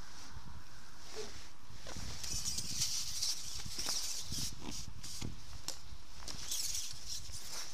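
Rustling and light clicks as a carbon fishing pole is handled and slid back close to the microphone, loudest in the middle and again near the end, over a low wind rumble on the microphone.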